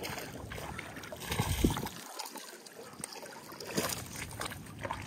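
A hooked bass splashing and thrashing at the water's surface as it is reeled in and lifted out onto the bank, loudest about a second and a half in.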